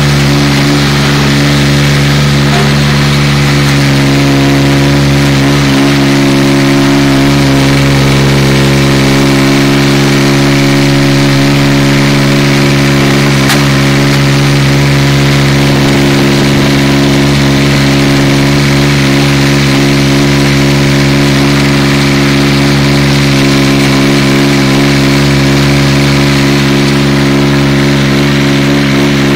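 Mini dumper's engine running at a steady speed while the machine drives with a load of rocks in its skip; a loud, even engine note that holds one pitch.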